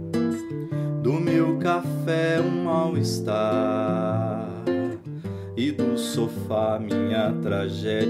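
Acoustic guitar strummed and picked through a song, with a man singing over it, holding one long wavering note in the middle.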